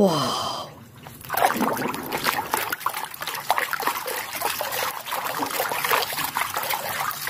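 Water sloshing and splashing in a basin as a hand scrubs a muddy toy car under the water, starting about a second in and going on in quick, irregular strokes.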